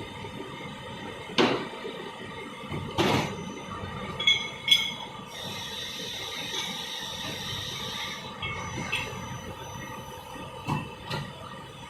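Machine-shop noise around a CNC lathe turning axles: a steady machine hum broken by several sharp metal knocks and ringing clinks, and a steady hiss lasting about three seconds mid-way.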